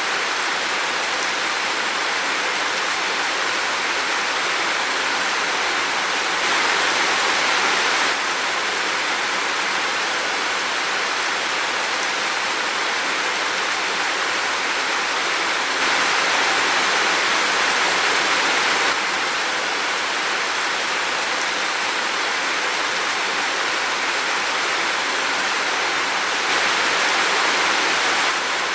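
Heavy rain falling steadily as an even hiss, growing louder for a couple of seconds three times.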